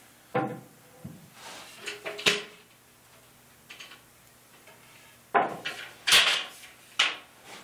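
Wooden knocks and clatter as the parts of an American walnut highboy table are handled and the shelf and base frame are taken apart. There is a knock about half a second in and another about two seconds in, then a quiet spell, then a run of louder knocks and rattles from about five to seven seconds in as the frame is folded.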